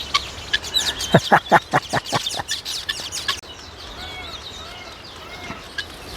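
Farm birds calling: a rapid run of about seven falling notes about a second in, over busy high chirping of small birds, then a few fainter arched calls.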